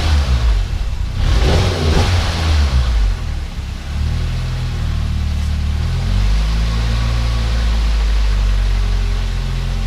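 Turbocharged Nissan GA16DE 1.6 litre four-cylinder engine revved twice in the first three seconds with a rushing hiss, then settling to an idle that wavers in pitch.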